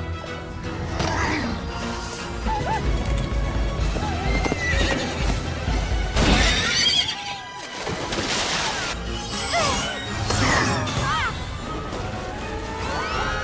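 Horses whinnying and neighing several times, each call a quick rise and fall in pitch, over an orchestral film score.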